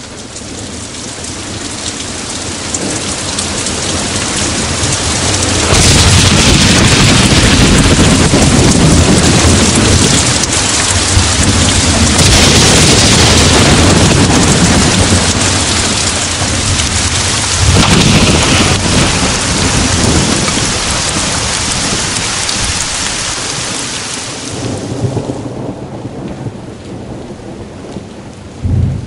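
Heavy rain with rolling thunder. It swells up over the first several seconds, peaks with thunder rumbles about six, twelve and eighteen seconds in, and fades near the end.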